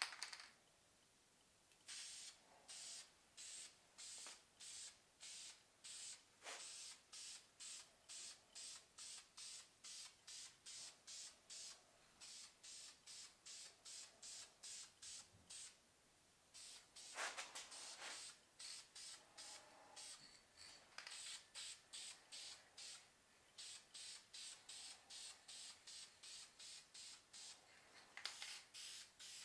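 Aerosol can of Duplicolor engine enamel spraying in faint short hisses, about two a second, with a pause around the middle, as metal fuel filter bases are painted green.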